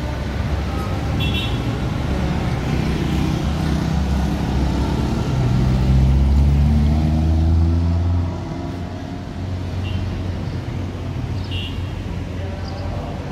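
Street traffic with cars and motorcycles passing. One engine rises in pitch as it speeds up and is loudest about six to eight seconds in, then drops away suddenly.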